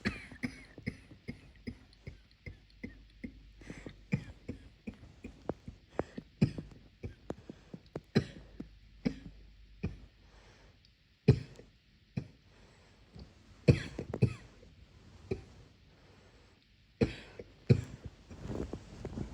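A person's muffled coughing fit: a long run of short coughs about two a second, then a brief pause and a few louder, more widely spaced coughs.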